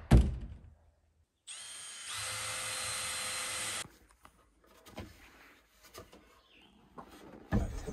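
A power drill runs for about two seconds. Its whine steps up in pitch just after it starts, holds steady, then cuts off. A wooden knock comes at the very start, and faint handling knocks follow.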